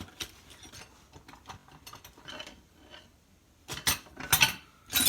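Metal hand tools, sockets and wrenches, clinking and clicking as they are handled and set down. There are scattered light clicks at first, then louder clattering about three and a half seconds in.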